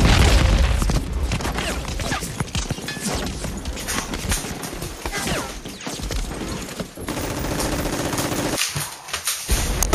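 Battle gunfire: many shots in quick succession, like rifles and machine guns firing together, with a heavy low bang at the start.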